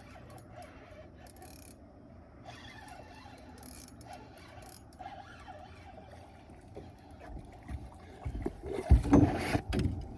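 A hooked smallmouth bass being played to the boat: a faint stretch, then from about seven seconds in a run of irregular thumps and splashes as the fish thrashes near the surface, loudest about nine seconds in.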